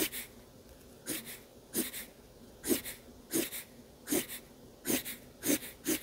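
Marker drawing short, quick strokes on drawing-pad paper: a run of brief swishes, about one every two-thirds of a second.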